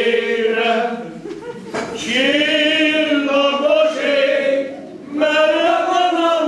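A group of men singing together without accompaniment, holding long notes, with breaks for breath about a second in and again about five seconds in.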